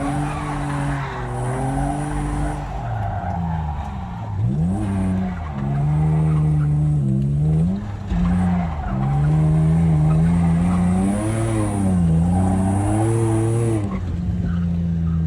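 Drift car's engine revving hard, its pitch rising and falling again and again as the car slides through a drift run, with tyre skid noise underneath.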